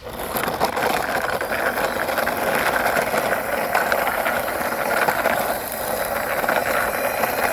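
Toy truck pushed along by hand, its wheels rolling with a steady clicking rattle.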